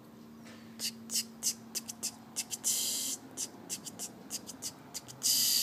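A toy Mega Bloks engine pushed along a tabletop: a string of quick sharp ticks, about three or four a second, with two longer hisses, one near the middle and one at the end.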